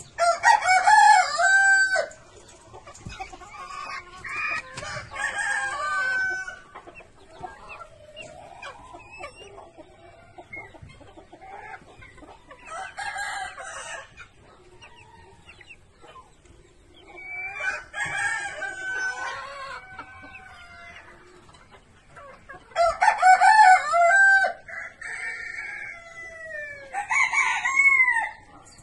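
Roosters crowing several times, with chickens clucking between the crows.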